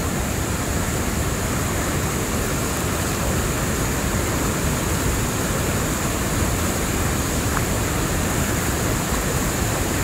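A fast, shallow stream rushing over a flat rock bed: a steady rush of water, heard close up while wading through it.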